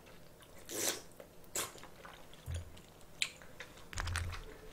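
A person chewing and biting food close to the microphone: a few short crisp mouth sounds, with soft low thumps about halfway through and near the end.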